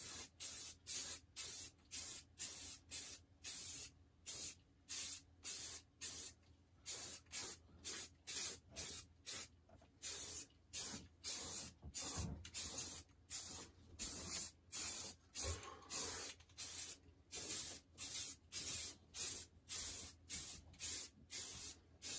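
Aerosol spray paint can spraying in short, rapid bursts, about two a second.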